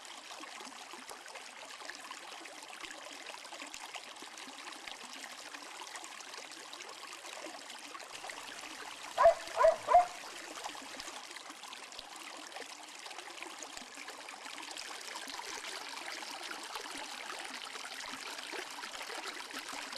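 Mountain stream running over rocks and small cascades, a steady rush of water. About nine seconds in, a dog barks three times in quick succession.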